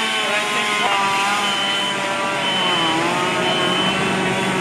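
Small gasoline engine revved up to high speed and held there, its pitch dipping slightly about three seconds in, with short high beeps sounding on and off.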